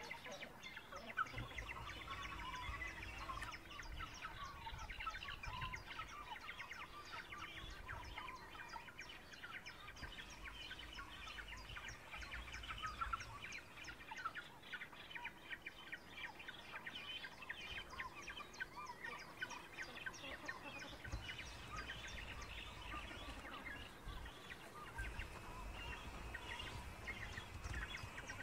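Continuous dense chirping and twittering of birds in a great cormorant nesting colony, with wind rumbling on the microphone now and then.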